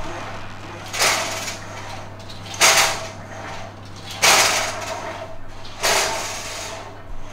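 Cable pulley machine's cables running through the pulleys, a sharp swoosh each time both handles are yanked down and back in a cross-country-ski poling pull: four pulls, about one every second and a half.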